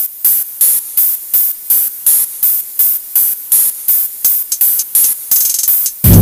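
Intro of an electronic hard trap track: a bright, hissing hit repeating about three times a second with almost no bass. Just before the end the full beat drops in with heavy bass.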